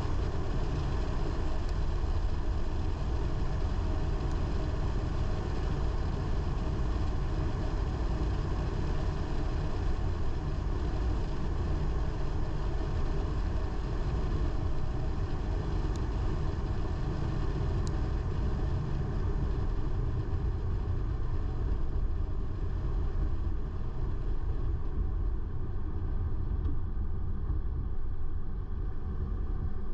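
A car driving steadily along a road: a continuous low rumble of engine and tyre noise.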